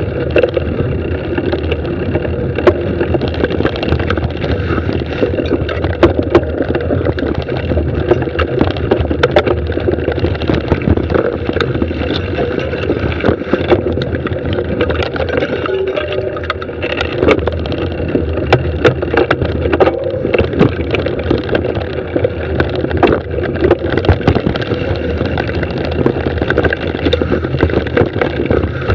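Mountain bike descending a dirt singletrack, heard close-up from an onboard camera: a steady rush of tyre and wind noise with frequent sharp clicks and knocks as the bike rattles over roots and rocks.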